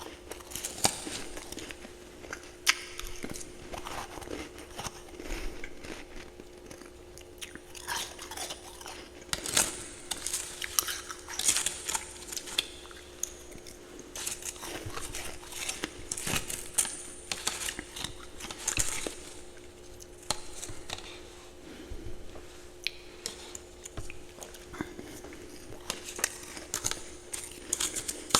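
Close-up chewing of ice and frost: a dense run of irregular crisp crunches, with the busiest bursts in the middle.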